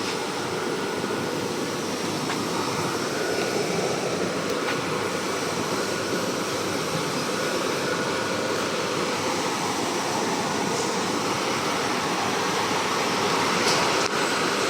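Automatic kitchen-towel roll packing and labelling machine running steadily: a continuous mechanical noise with a few faint clicks.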